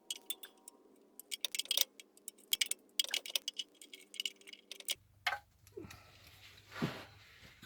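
3/8-inch ratchet with a 10 mm socket clicking in short irregular runs while working the rear oil pan bolts.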